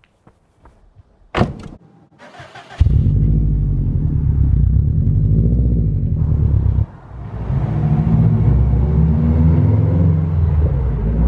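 Subaru Impreza WRX STI's turbocharged flat-four engine starting after a click and a short crank about three seconds in, then running loud with its pitch rising and falling as it revs. It drops out briefly near the middle and picks up again.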